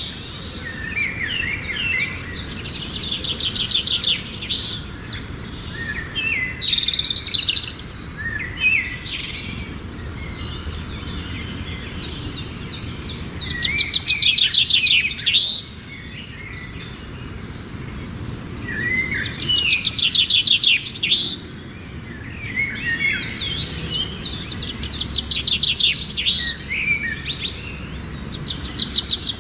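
Songbirds singing and chirping, with bursts of fast, high trills every few seconds.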